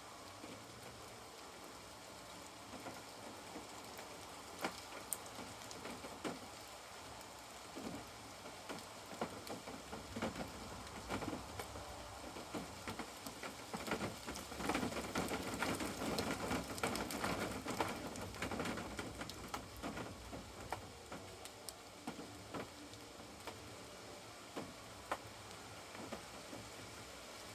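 Steady rain falling, with scattered single drops tapping sharply; the rain grows heavier and louder for a few seconds around the middle, then eases off again.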